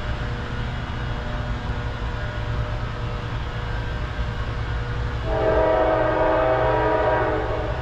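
Air horn of an approaching Norfolk Southern freight locomotive sounding one long chord of about two seconds, some five seconds in, over a steady low rumble.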